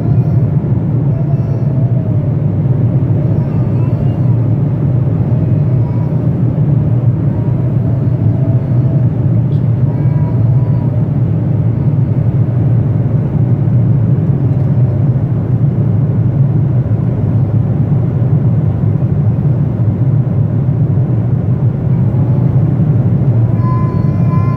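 Airplane cabin noise in flight: the engines and the airflow make a loud, steady, deep rumble, heard from inside the cabin.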